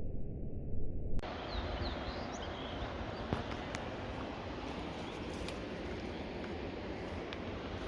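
Outdoor trail ambience: a steady low rumble with a few short bird chirps a second or two in and scattered light clicks.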